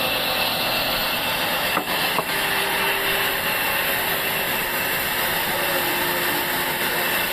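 Sawmill machinery running steadily with a constant mechanical noise and a faint steady high whine, with two brief knocks about two seconds in.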